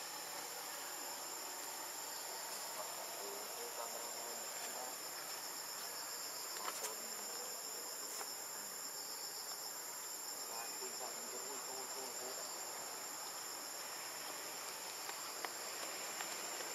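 Steady, high-pitched insect chorus: a continuous shrill drone with a few faint clicks.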